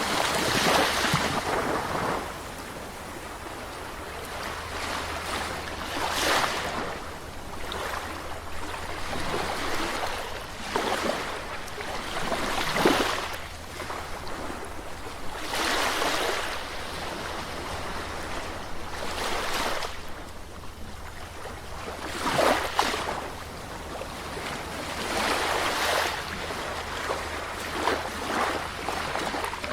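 Calm sea: small waves breaking and washing onto the shore about every three seconds, each surge swelling and fading, over a steady low rumble.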